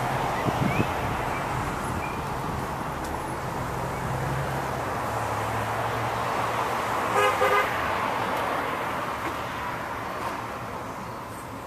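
Steady outdoor traffic noise with a low engine hum, and about seven seconds in a car horn gives a short, quick toot.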